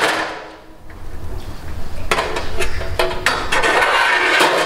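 Metal music stands clattering and knocking as they are handled and moved, several sharp clanks near the middle and end.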